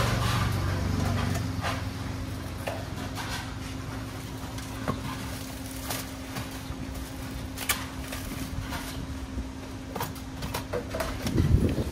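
Kitchen utensils knocking and clinking against pots and dishes at irregular moments, over a steady low hum.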